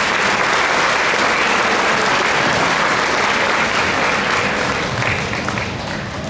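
Audience applauding after a piece of music ends: dense, steady clapping that thins out near the end.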